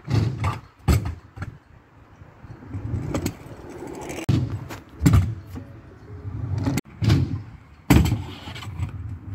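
Skatepark sounds: a low rumble with a string of sharp clacks and knocks scattered through it, about eight in all.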